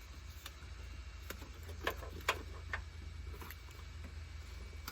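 Scattered light clicks and taps, about seven of them a fraction of a second apart, from handling a wiring harness being pushed through the van's body channel, over a low steady hum.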